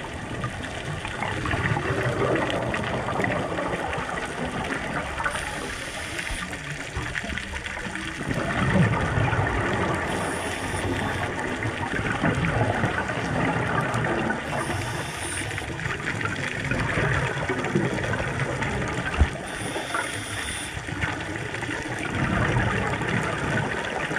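Scuba diver breathing through a regulator underwater: a short hiss on each inhale about every four to five seconds, with gurgling streams of exhaled bubbles between.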